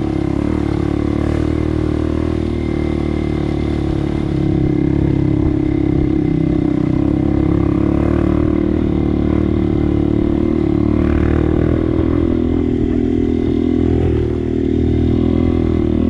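Motorcycle engine running steadily, getting a little louder about four seconds in.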